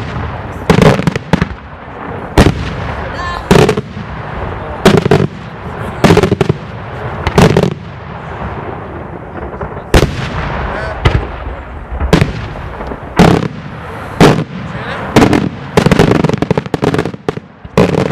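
Daylight fireworks shells bursting in a steady series of loud bangs, about one a second, each followed by a short echo, with a brief pause about halfway through.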